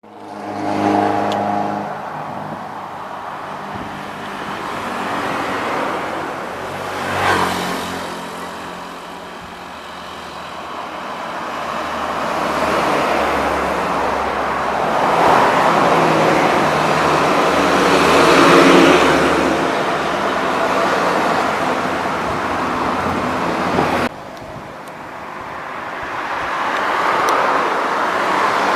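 Intercity buses and other road traffic passing on a main road, each pass swelling and fading. About 24 seconds in, the sound cuts off abruptly and then builds again.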